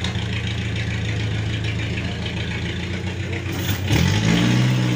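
A vehicle engine runs steadily, then revs up about four seconds in, rising in pitch and getting louder.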